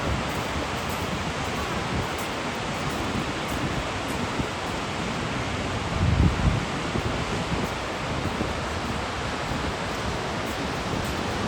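Steady rushing noise of the Gullfoss waterfall. A brief gust of wind hits the microphone about six seconds in.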